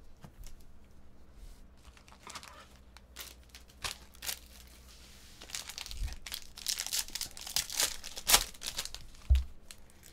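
Plastic trading-card pack wrapper being torn open and crinkled in the hands. Sharp crackles come thicker in the second half, and a soft low thump follows near the end.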